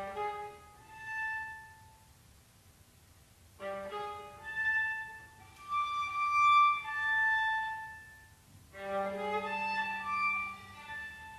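Violin, viola and cello trio playing a contemporary piece in three short, separate phrases with brief pauses between them; each phrase opens on a low note beneath higher held notes.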